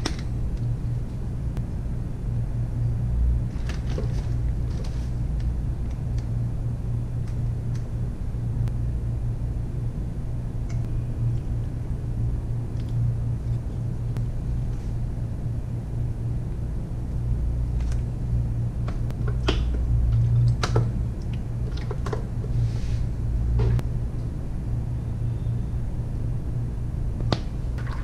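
A steady low hum throughout, with a few light clicks and clinks from a metal spoon and bottles against a ceramic bowl, mostly in the second half.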